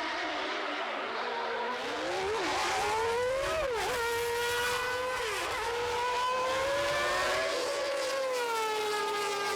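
Recreated engine sound of Ayrton Senna's 1989 McLaren Honda MP4/5 Formula One car, a high-revving V10, rising and falling in pitch through the gears. The pitch dips sharply a few times and eases down near the end.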